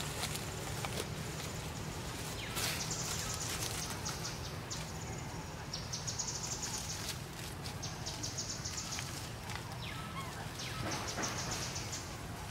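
Insects calling in repeated high-pitched pulsed trills, five or six of them, each a second or so long.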